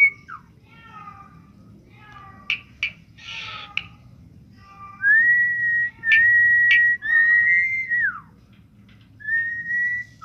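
A pet talking bird whistling and chirping: a few short chirps and sharp clicks, then about three seconds of loud, steady whistled notes ending in a falling glide, and a shorter rising whistle near the end.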